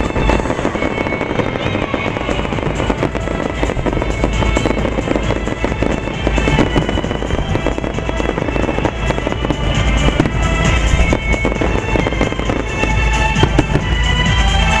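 Fireworks barrage: many shells bursting and crackling in rapid succession, with music playing along with the show.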